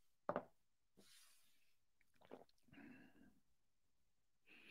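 Near silence at a close microphone: faint breathing, with one short soft thump about a third of a second in.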